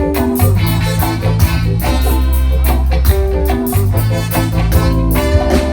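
Live band playing an instrumental passage with no singing: a strong bass line, sustained pitched notes and a steady drum beat.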